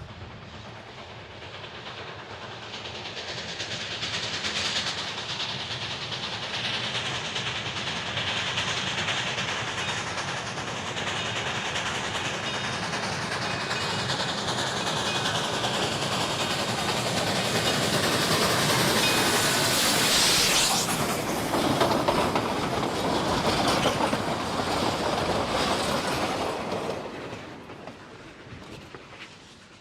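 Steam locomotive chugging past close by at medium speed. It builds over several seconds, is loudest about two-thirds of the way in with a falling pitch as it goes by, then fades near the end.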